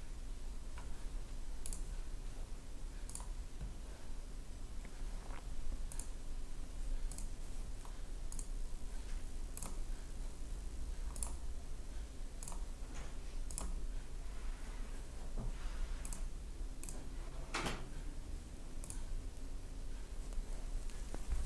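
Scattered clicks of a computer mouse, about one a second at irregular spacing, over a low steady hum. One click a little past the middle is louder than the rest.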